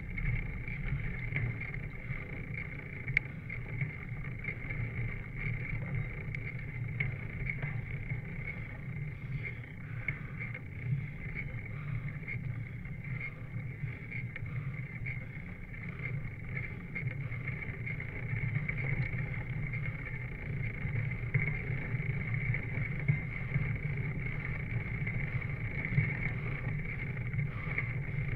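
Steady rushing road and wind noise of a bicycle rolling along an asphalt road, picked up by a handlebar-mounted camera, with small irregular ticks and rattles.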